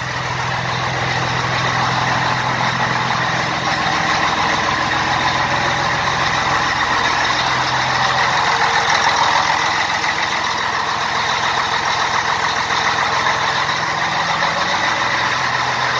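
Scania 113 truck's diesel engine idling steadily, heard close to its new chrome exhaust tip.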